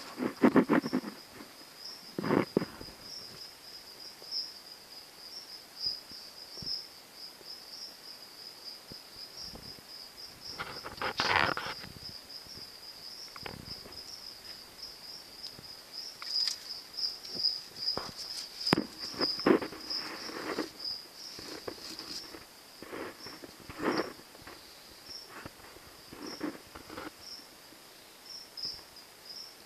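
Insect chirping steadily in a fast, even pulse, with scattered rustles and knocks throughout.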